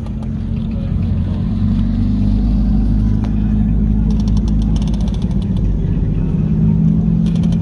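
A vehicle engine running steadily with a low drone, with two spells of rapid light clicking, about four seconds in and again near the end.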